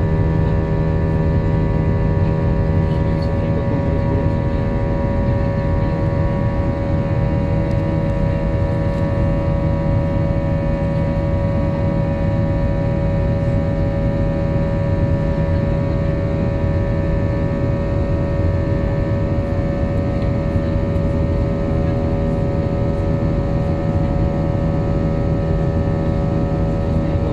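Cabin noise inside an Airbus A320-family jet airliner climbing out after take-off: a loud, steady engine drone of several humming tones over a low rumble and air rush, unchanging throughout.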